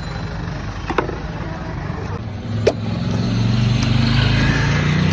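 Two sharp knocks about a second and a half apart, then a motor vehicle's engine rising into the loudest sound as it passes close by.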